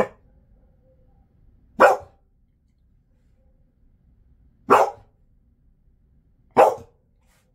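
Jindo dog giving short single barks, four in all, about two seconds apart.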